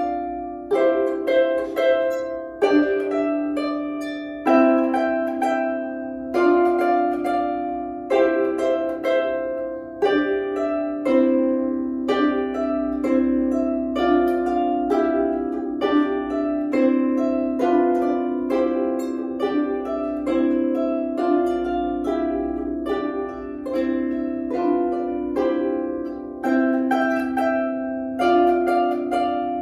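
Solo harp playing a slow tune: plucked notes that ring and fade, the melody over sustained lower notes, with a new note or chord plucked every second or so.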